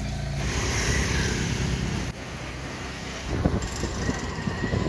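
Motor scooter riding along the road, with wind rushing over the microphone. In the second half the wind buffets the microphone in uneven low thumps.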